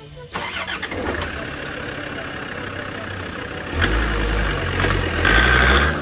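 Land Rover Defender 90's diesel engine running at idle, then getting louder with a deeper rumble from about four seconds in as the vehicle pulls away and drives up close.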